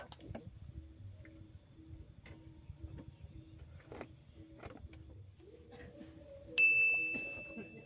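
A night animal calling in a low, pulsing rhythm about three times a second, with light clicks and taps as fishing rods and reels are handled. About two-thirds of the way in, a single clear high ring, like a small bell struck once, starts sharply and fades over about a second and a half.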